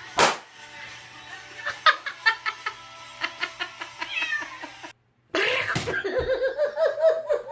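A domestic cat meowing in a long, wavering call through the second half, after a brief break in the sound. Before that, a sharp thump at the very start and a run of short clicks and chirps over background music.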